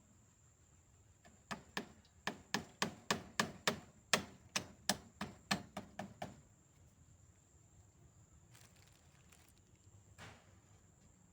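A quick run of about fifteen sharp hand-tool blows, about three a second, with one more knock near the end.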